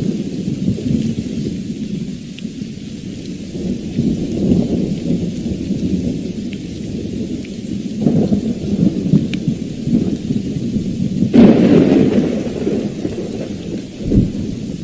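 Thunderstorm: rolling thunder rumbling continuously over steady rain, swelling about halfway through, with a louder, sharper peal about three-quarters of the way in.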